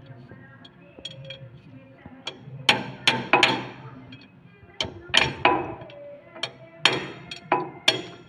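Metal wrench clinking and knocking against bolts and gears inside an opened, oil-filled tractor gearbox: a series of sharp metallic strikes at uneven intervals, over a low steady hum.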